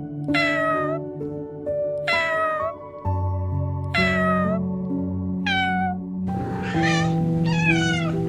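Repeated short animal calls, each sliding down in pitch: four about a second and a half apart, then two rougher, noisier calls near the end, over soft background music.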